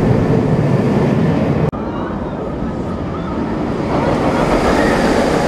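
Galactica, a B&M flying roller coaster, its train rushing along the steel track overhead with a loud steady rumble. The sound cuts off abruptly about a second and a half in, and the rush builds again near the end as a train swoops past.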